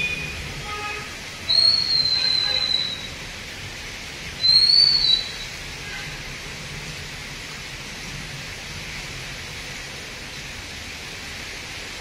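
Steady hiss of falling rain, with two high whistle tones over it: a long one about a second and a half in and a shorter one about four and a half seconds in, each dipping slightly in pitch at the end.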